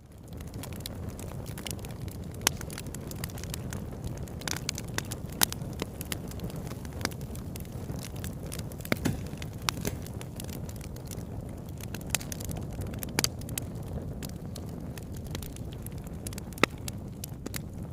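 Campfire burning: a steady low rush from the flames with irregular sharp crackles and pops of burning wood, and a handful of louder snaps spread through.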